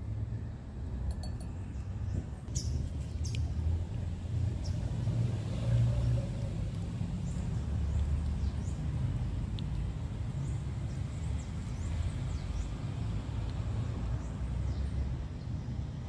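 Steady low rumble of background noise, with faint, brief high chirps scattered through.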